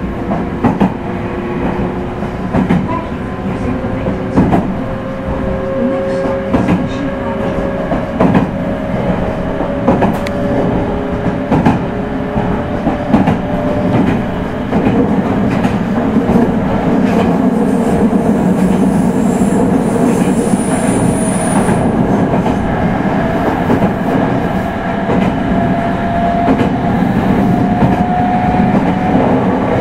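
Meitetsu 3100 series electric train running, its traction motors whining in tones that rise slowly in pitch as it gathers speed, twice over, while the wheels clack over rail joints.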